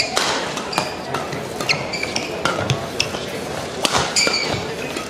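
Badminton rackets striking the shuttlecock in a fast doubles rally: a string of sharp cracks, several a second at times, with shoes squeaking on the court mat between them over the hum of the arena crowd.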